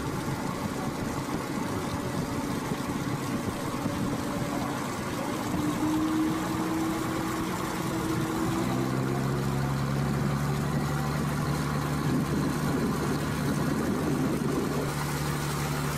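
Cruise boat's engine running steadily. About halfway through, its hum shifts down to a lower, steady note.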